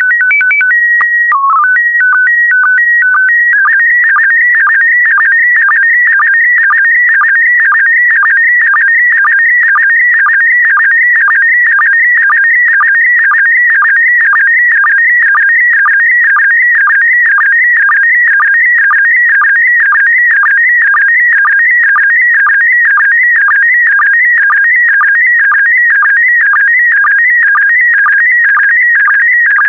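PD120 slow-scan television (SSTV) signal. It opens with a few seconds of stepped calibration tones, the mode's header, then settles into the image data: a high, warbling tone broken by a short lower blip about twice a second, one blip per pair of scan lines.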